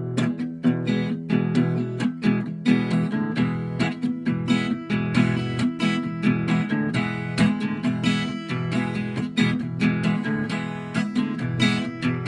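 Strummed acoustic guitar playing a steady rhythm, with no singing.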